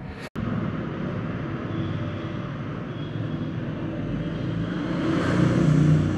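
Steady rumble of a passing vehicle that starts abruptly just after the beginning, grows louder toward the end and then begins to ease off.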